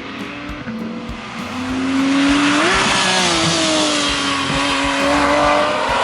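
Porsche 911 GT3's naturally aspirated flat-six at high revs. The engine note climbs and gets louder from about two seconds in, then holds high and eases down slightly.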